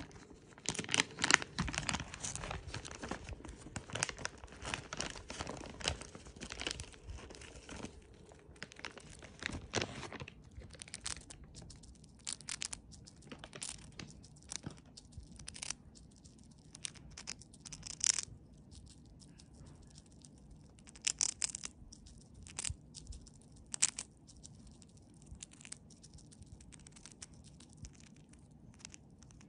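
A foil snack bag crinkling and tearing as it is handled and opened, for about the first ten seconds. Then scattered short crisp crunches as a Siberian chipmunk bites into a dried vegetable chip.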